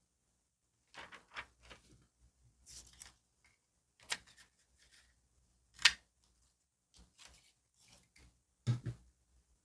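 Close-up stationery handling for diary decorating: scattered paper rustles and crinkles with short clicks and taps, the sharpest click about six seconds in and a duller double knock near the end.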